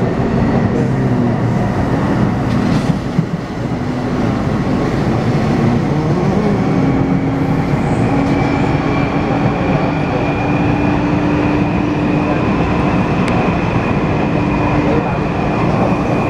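Taipei Metro C301 train with retrofitted propulsion running, its rumble joined about six seconds in by a steady whine from the traction inverter. The whine rises slightly in pitch and then holds; it is the odd inverter noise that this retrofitted car is known for.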